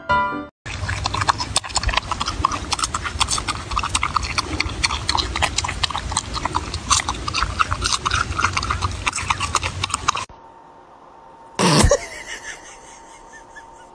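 Marmot chewing a cucumber: a loud, dense, irregular run of crunches and smacks that cuts off suddenly after about ten seconds. A quieter stretch with a faint steady hum follows, broken by one short, sharp sound near the end.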